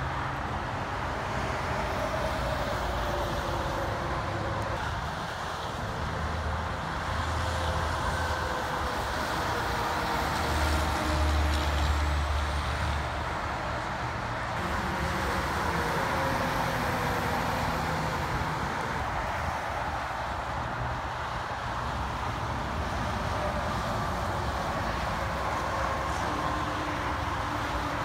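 Steady interstate highway traffic: tyres and engines of cars and tractor-trailers passing. A deeper, louder engine rumble swells up and fades near the middle.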